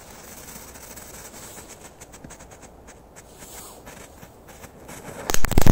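A crackle-effect firecracker's lit fuse fizzing faintly for about five seconds, then the charge going off in a fast, loud run of crackling pops near the end.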